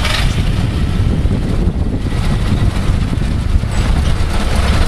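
1929 Ford Model A truck's four-cylinder engine running steadily at low speed, just after a hard start.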